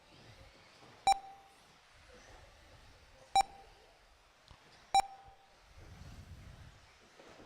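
Three short, high electronic beeps at uneven intervals from an RC race lap-timing system, each one a transponder-equipped car crossing the timing loop.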